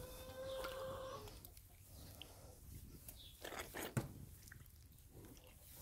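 A single drawn-out animal call, held steady for about a second at the start, followed by faint rustling and handling sounds in the straw.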